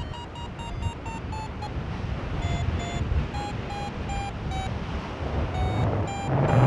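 Paragliding variometer beeping, the climb tone that signals rising air: quick beeps near 1 kHz that slow and drop in pitch, break off, then come back in slower runs. Wind rushes on the microphone throughout and swells loudest near the end.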